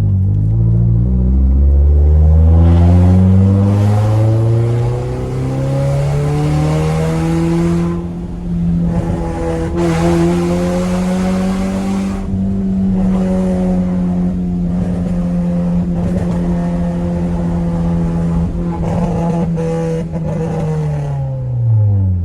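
Honda Civic EJ6's four-cylinder engine under hard driving. Its pitch climbs over the first few seconds, then holds high and nearly steady with a few brief throttle lifts, and drops away sharply near the end as the car slows.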